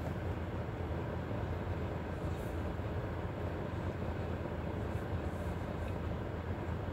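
Steady low rumble with a faint hiss above it, heard inside a car's cabin.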